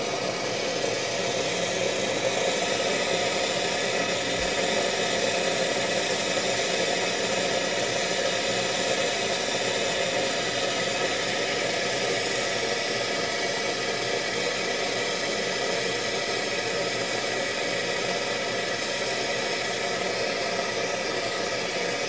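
Hot water and steam rushing out of a Rocket Cellini Premium Plus heat-exchanger espresso machine's boiler through an opened valve: a steady hiss that does not let up. The boiler's own pressure, from being at full temperature, is forcing the water out as it drains.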